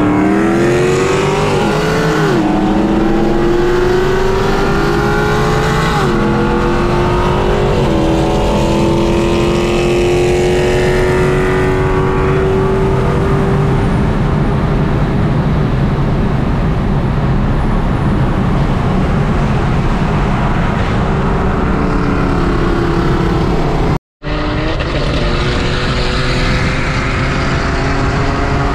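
Audi S3's turbocharged four-cylinder accelerating hard through the gears, heard from inside the cabin. The engine note climbs, drops quickly at an upshift about two, six and eight seconds in, then pulls in one long steady climb. Near the end the sound cuts out briefly, then the engine is heard pulling again.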